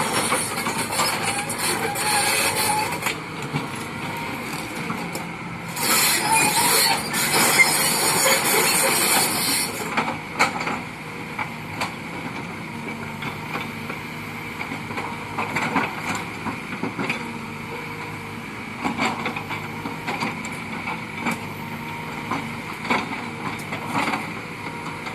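Kobelco excavator running at work, with loud bursts of hissing noise in the first few seconds and again from about six to ten seconds in. After that the engine runs quieter, with scattered knocks and clanks.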